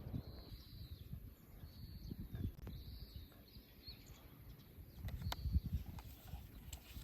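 A bird calling repeatedly with short, high calls about every second or two, over low rumbling noise that grows louder about five seconds in.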